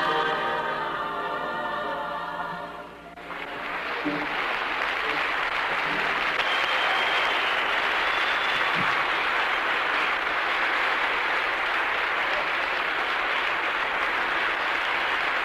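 A choir singing, fading and cutting off about three seconds in, followed by steady audience applause.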